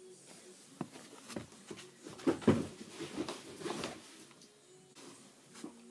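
Bare feet thumping and knocking on carpeted stairs as someone climbs them right past the microphone: a run of soft, irregular thuds over a few seconds, loudest about halfway through, then one last knock near the end.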